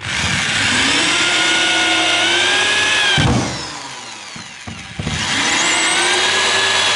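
Corded drill with a screwdriver bit driving long 80 mm wood screws into resinous floorboards, run in two bursts of about three and two and a half seconds, its motor whine rising as it speeds up and dropping away at each stop.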